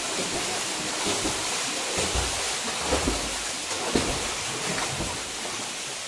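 Steady rush of a waterfall pouring into a rock pool, with splashing and irregular low thumps from a person swimming through the water.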